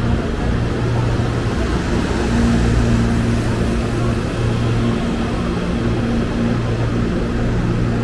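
Electric commuter train at the station giving a steady mechanical hum, with a low pitched drone that fades in and out over a constant noise.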